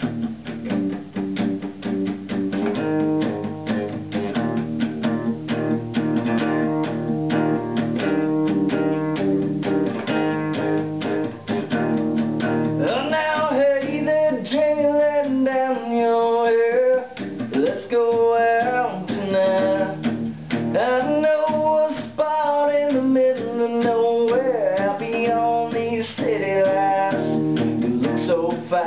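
A cutaway acoustic guitar strummed in a steady rhythm, with a man's singing voice joining about halfway through.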